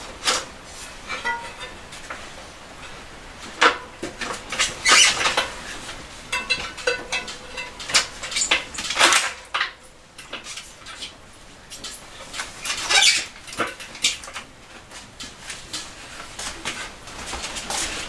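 Irregular metallic clicks, clinks and rattles from hands working on a road bike's rear wheel, cassette and chain; several of the knocks ring briefly.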